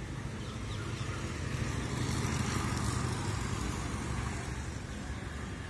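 A motor vehicle's engine passing by, swelling to its loudest about halfway through and then fading.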